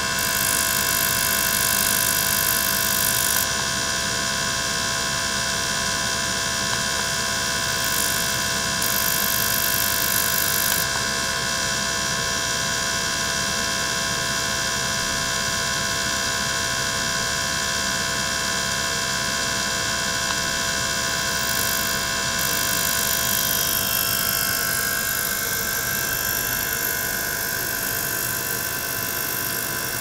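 Small water-circulation pump running steadily while it circulates water through an ultrasonic test tank, giving a whine made of several steady tones. A high hiss swells at the start, again about eight seconds in and briefly about twenty-two seconds in, and the tones shift about three quarters of the way through.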